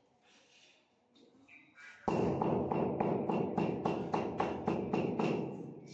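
Hammer tapping a granite stair tread to bed it in the mortar. Quick, even taps, about four a second, start suddenly about two seconds in.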